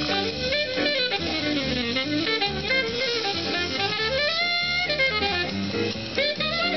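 Jazz with a saxophone playing, heard through the speaker of a 1950s Delmonico Novum Model 1047 tube radio.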